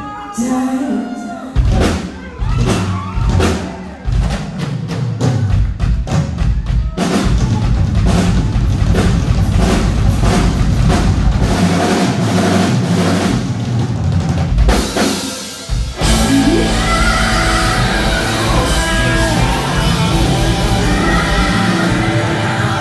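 Live rock band playing on electric guitar, bass guitar and drum kit. A sung line trails off at the start, the drums come in with separate hits, then the full band plays, with a short drop about 15 seconds in before it picks up again.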